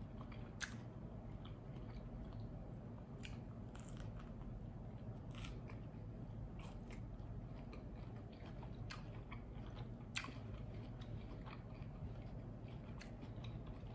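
A person chewing a mouthful of toasted sourdough topped with salad and cheese, with sharp crunches of the toast about once a second.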